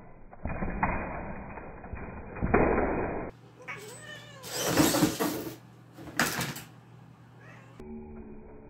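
An RC monster truck drives for about three seconds, then a cat meows loudly a few times.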